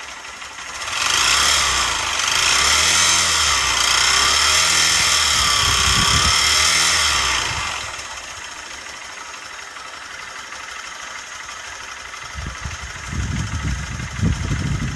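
Honda CBF125 single-cylinder four-stroke engine running, with a noise that a Honda garage judged abnormal. About a second in it gets much louder and brighter for roughly seven seconds, then settles back to a quieter idle, and uneven low thumps come in near the end.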